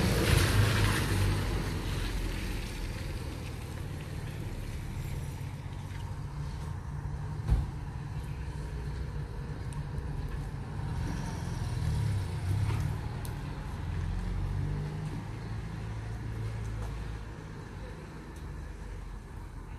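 Street ambience dominated by a car engine running, a low steady hum, with a wider hiss at the start that fades over the first couple of seconds. A single sharp knock comes about seven and a half seconds in.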